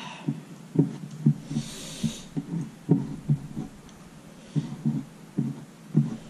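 Close-miked chewing of a mouthful of rice and curry, a series of soft low thumps about every half second, with a brief hiss of breath about a second and a half in.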